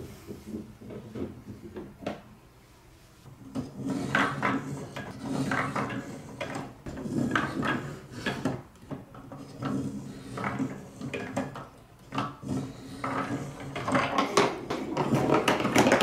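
Trix Track marble run's lever-worked step lift clattering as balls are pushed up its steps: irregular knocks and rattles with a short lull about two seconds in, growing busier and louder near the end as a ball rolls off down the wavy slope.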